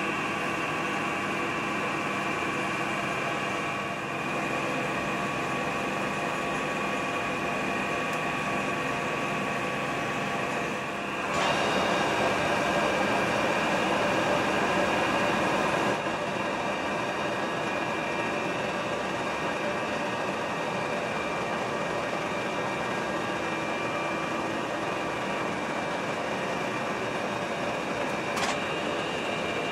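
Colchester Master 2500 centre lathe running with a steady geared whine while cutting a 9 tpi Whitworth thread on a steel bolt. About eleven seconds in, the sound steps louder and rougher for a few seconds, then settles back. There is a single sharp click near the end.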